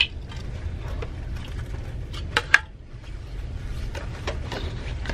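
Plastic yogurt cup and its muesli topping compartment being handled: small rustles and clicks, with two sharp plastic clicks a little over two seconds in, as the crunchy topping is tipped into the yogurt. A steady low rumble runs underneath.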